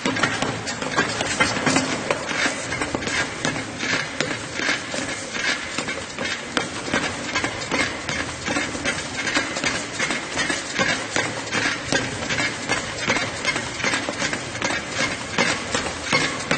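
Person running on a treadmill: even, rhythmic footfalls on the moving belt, about three a second, over a continuous running noise from the machine.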